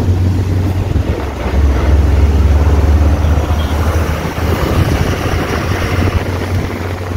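Motorcycle engine running at low speed, a steady low hum that eases a little about four seconds in, under wind noise on the helmet-mounted microphone.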